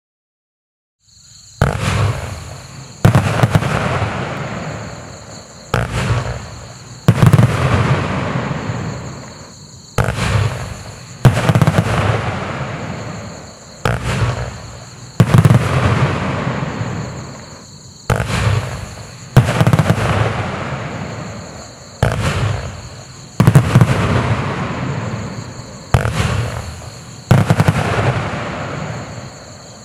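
A 49-shot Gold Salute fireworks cake firing in volleys: sharp bangs come in pairs about every four seconds, the first of each pair softer than the second, and each trails off over a second or two as the stars burst.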